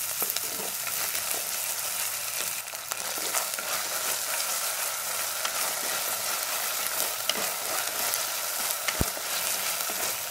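Chopped onions and ginger-garlic paste sizzling in hot sesame oil in an earthenware pot, with a spatula scraping and stirring them. One sharp knock about nine seconds in.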